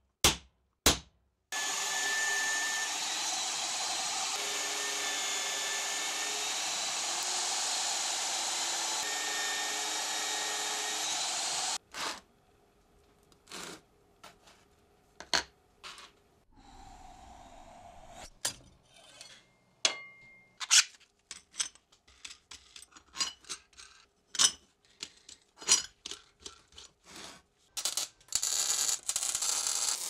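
A hammer strikes a steel centre punch twice, then a power drill runs steadily for about ten seconds and stops abruptly. Scattered light clinks and knocks of small steel parts follow, and a steady noise starts again near the end.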